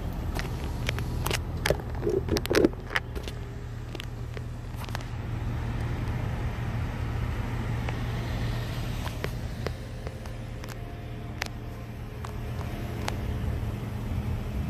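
Road traffic waiting at a crossing: cars idling with a steady low hum. Scattered sharp clicks come in the first few seconds and again later.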